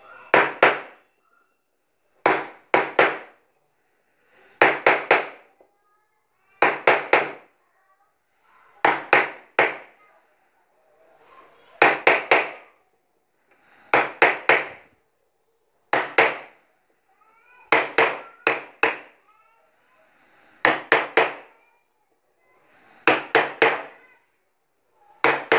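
Wooden mallet striking a carving gouge into a wooden board, in clusters of two or three sharp knocks about every two seconds, each knock with a short ring.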